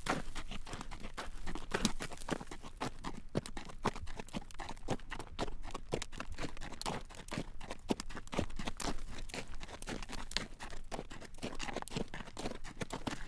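Horse's hooves clip-clopping on a road at a walk as it draws a carriage: a steady run of sharp clacks, several a second.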